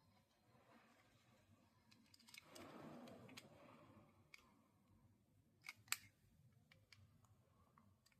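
Faint handling noise near silence: a soft rustling scrape about two and a half seconds in, then two quick sharp clicks a moment apart near six seconds.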